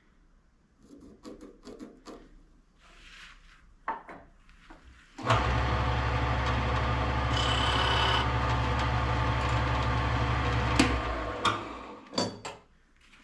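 An electric woodworking power tool starts abruptly about five seconds in, runs steadily on wood with a low motor hum under a loud rushing noise for about six seconds, then shuts off and winds down. Light wooden knocks and handling sounds come before and after it.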